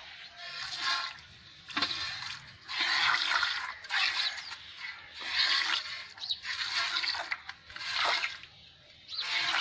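Hand-milking: streams of milk squirting from the teats into a metal bucket that already holds some milk, in short spurts about once a second.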